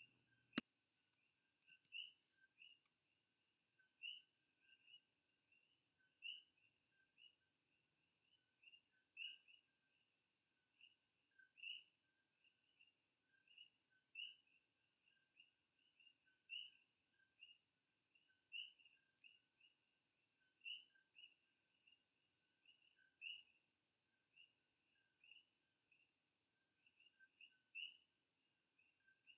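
Faint insect chirping: a steady high trill with repeated shorter chirps below it. A single sharp click about half a second in.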